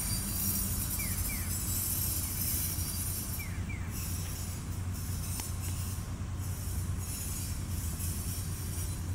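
Steady outdoor ambience: a constant low engine hum under a high, hissing layer, with short pairs of falling chirps a few times.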